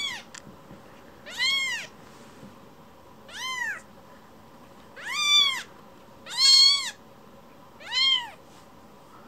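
A baby kitten mewing: six short, high-pitched mews, each rising and falling in pitch, one every second or two.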